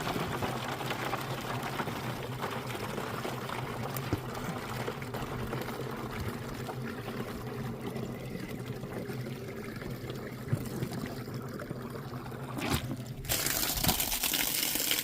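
Water running from a faucet into a water jug, filling it steadily. The sound turns louder and brighter about 13 seconds in.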